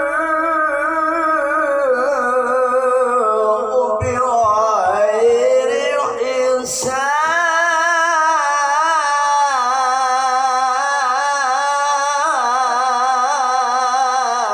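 A male Quran reciter (qari) in slow melodic tilawah, drawing out long ornamented notes with wavering pitch. There is a brief break about halfway through before the voice rises and holds again.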